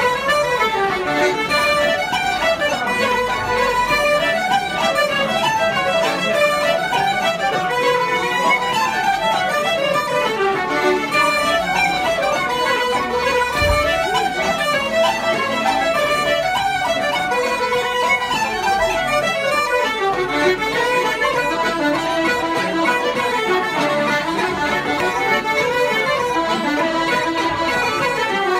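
Irish traditional session music: flute and fiddle playing a fast tune together in continuous runs of notes, with guitar accompaniment.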